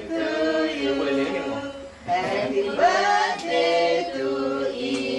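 A group of voices singing a song together in unison, holding each note, with short breaks between lines.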